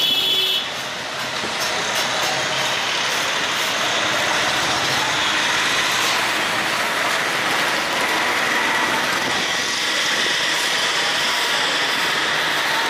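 Steady noise of busy street traffic beside a roadside stall, with a brief high-pitched tone at the very start.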